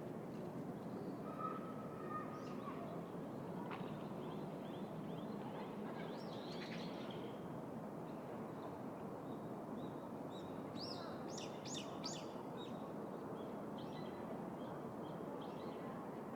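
City park ambience: a steady low hum of distant traffic with small birds chirping over it, a brief run of high, quick chirps about two-thirds of the way through.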